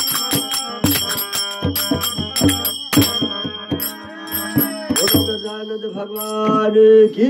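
Folk music: regular drum strokes under jingling, ringing metal percussion. The drum drops out about five seconds in, leaving held melodic tones that rise near the end.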